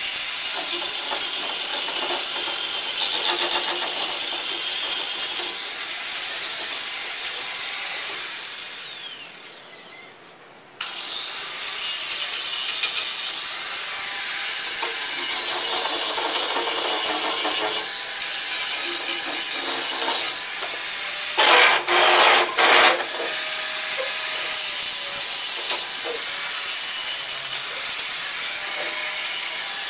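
Steady abrasive rubbing on wood, as in sanding a wooden chair by hand. The sound fades away about eight seconds in, cuts back in abruptly near eleven seconds, and has a few louder strokes a little after twenty seconds.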